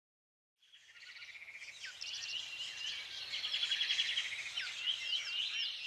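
Several birds chirping and trilling together, with quick rapid-note trills and short swooping calls. It fades in about half a second in.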